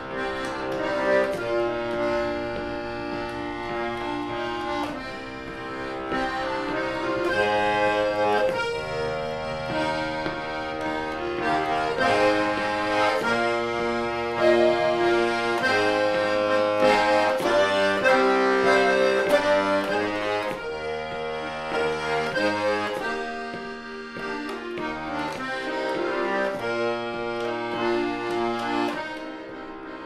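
Button accordion playing an instrumental introduction: a melody over held chords, with a brief thinning near the middle.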